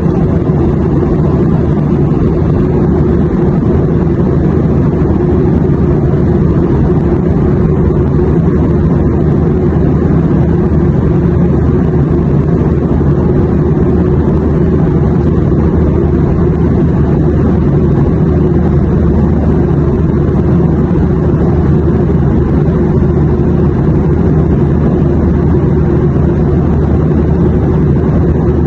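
Steady low drone of an airliner cabin in cruise: engine and airflow noise, deepest and loudest in the low range, without change.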